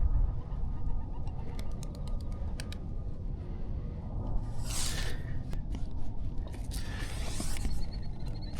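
Wind buffeting the microphone in a steady low rumble, with a few faint light clicks early on and two louder rustling swishes about halfway and near the end.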